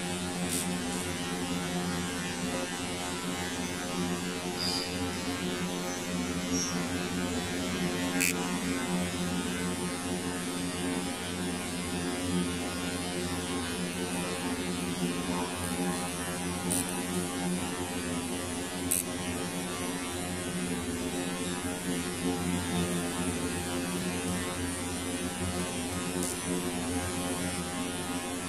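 A steady electrical hum with a buzzing edge, unchanging throughout, with a few faint short clicks over it.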